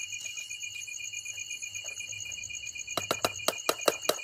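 Crickets chirping in a steady, high-pitched pulse. About three seconds in comes a quick run of sharp metallic clicks: a utensil knocking against the cooking pan.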